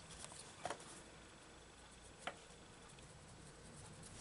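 Near silence with faint coloured-pencil work on paper: two light taps, one just under a second in and one just past two seconds.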